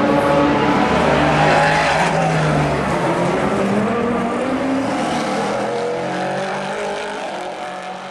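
Endurance-racing prototype car engines at racing speed, their note rising and falling as they drive away, growing steadily fainter.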